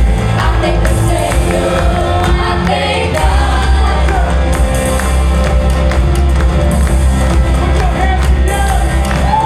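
Live gospel worship music: a band with bass and drums playing under singing voices, the congregation joining in.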